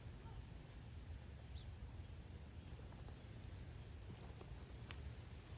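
Steady, unbroken high-pitched trilling of a cricket chorus.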